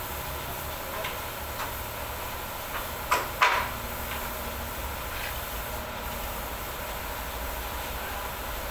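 A few light taps, then two sharp metallic knocks with a brief ring about three seconds in, from hand work on an aluminium sliding-door frame during installation.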